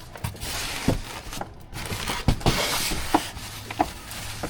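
Rustling and crinkling of packaging, with a few light knocks, as the kit's parts are handled and unpacked.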